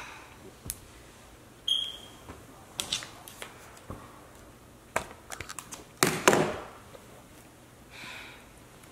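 A short chime like a phone notification about two seconds in, then rustling and handling noises as a person shifts and sits up on a fabric couch, loudest about six seconds in, and a soft breath out near the end.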